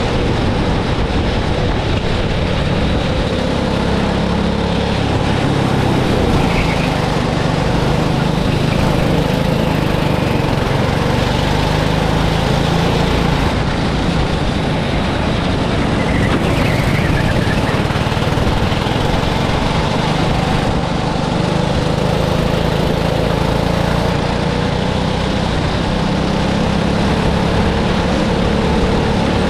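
Go-kart engine running continuously, its pitch rising and falling a little as the kart speeds up and slows.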